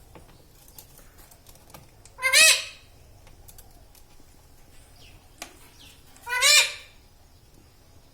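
Pet ring-necked parrot calling twice, two loud calls of about half a second each, about four seconds apart, each rising and then falling in pitch.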